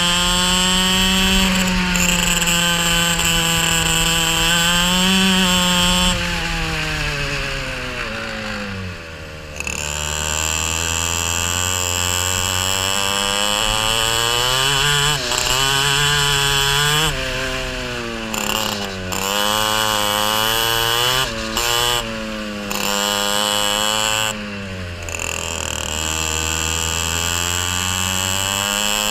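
Racing kart engine at full race pace, heard close from on board: the engine note climbs on the straights and drops sharply each time the driver lifts off for a corner, several times over, with a steady high whine above it.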